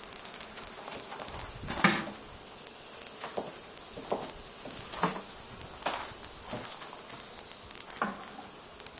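Irregular handling knocks and rustles, about seven in all, the sharpest about two seconds in, over a faint crackling hiss.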